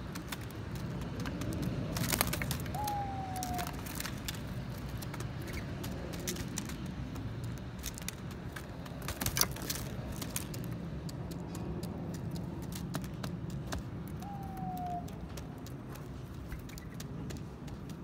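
Steady low city traffic rumble, with scattered light taps and crinkles from mourning doves stepping and pecking on a foil-covered window sill, two of them sharper, about two and nine seconds in. A short, faint falling whistle sounds twice.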